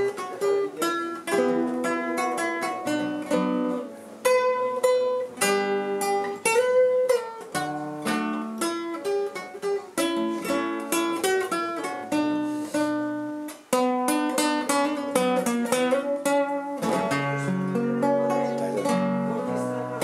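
Guitar played solo: an instrumental passage of picked melody notes over lower bass notes, with a few sliding notes.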